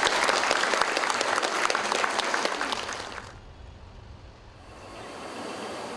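A seated audience applauding, many hands clapping together. The clapping cuts off abruptly about three seconds in, leaving only a faint, steady low background noise.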